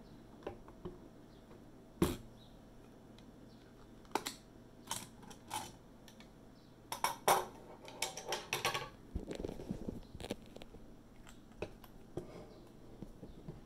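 Scattered sharp clicks and light metallic knocks from handling a Canon DS-8 Super 8 film camera's body and open film compartment, bunched together about seven to nine seconds in, followed by a brief low rustle of handling.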